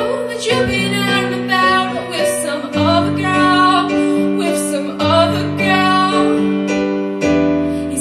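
A young female vocalist singing long, held notes into a microphone over sustained piano chords.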